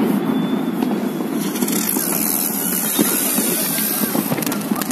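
Distant New Year fireworks going off all over a city: a dense, steady rumble of many bursts blending together, with a few sharper pops and crackles, most of them near the end.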